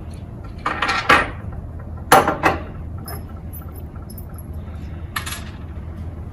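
Metal hand tools and hardware clinking and clattering as they are handled: a few short clatters, about one second in, a louder pair just after two seconds, and another a little after five seconds, over a steady low hum.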